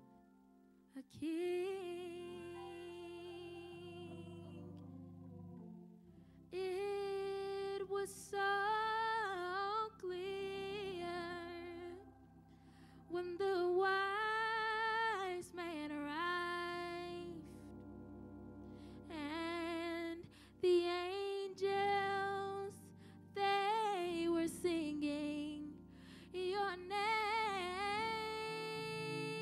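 A woman's solo voice singing a slow ballad in long, held phrases with vibrato, pausing between lines, over soft instrumental accompaniment.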